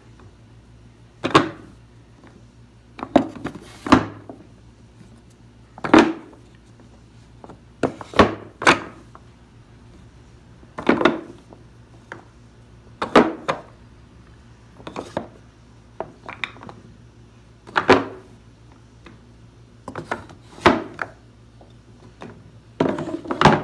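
Solid pine blocks being set one at a time into a plywood box, knocking wood on wood every second or two, sometimes as a quick double knock.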